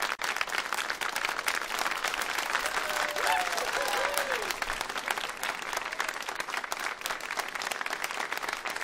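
Audience applauding steadily, with a few voices calling out briefly near the middle.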